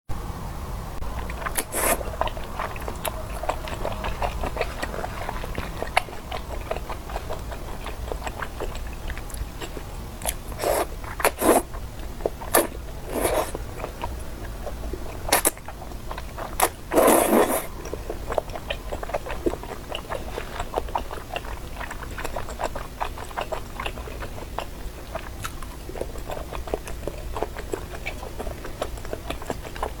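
Close-miked chewing of chewy garaetteok tteokbokki (thick Korean rice-cake sticks in sauce): a steady run of wet, sticky mouth clicks, broken by a few louder brief bites or slurps, the loudest about seventeen seconds in.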